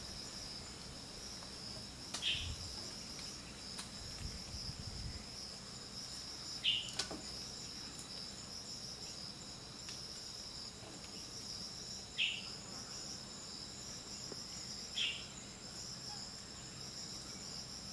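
Steady, high-pitched chorus of insects in forest, faintly pulsing. Four short falling chirps break through it along the way.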